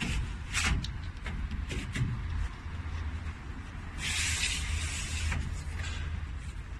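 Air shower primary filter being handled and slid in its frame: a few short clicks and scrapes, then a sliding, hissing rush lasting about a second.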